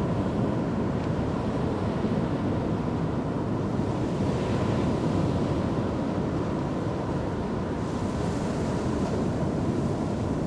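Sea surf breaking on a sandy beach, with wind buffeting the microphone: a steady rushing noise.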